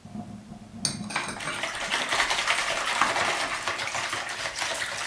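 Water pouring steadily into a bowl, starting about a second in.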